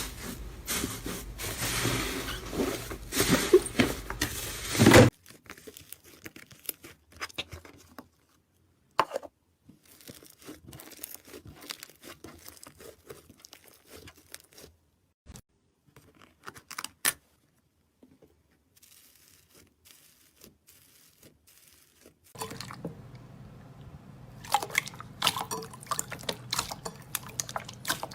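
Slime being played with by hand: dense sticky crackling and crunching that cuts off suddenly about five seconds in, then scattered quiet pops and clicks, then crackling again near the end.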